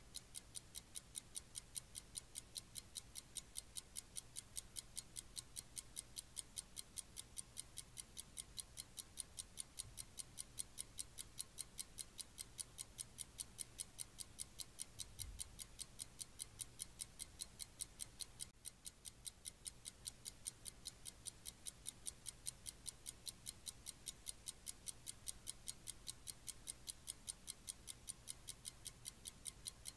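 Faint, steady ticking: a few sharp, evenly spaced ticks every second, like a clock, over a low hum, with one soft low thump about halfway through.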